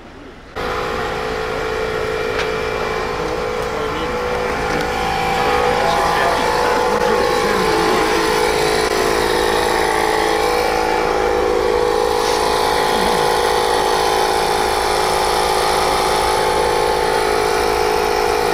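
Car engine running steadily, loud and close. It cuts in suddenly just after the start and gets a little louder about five seconds in.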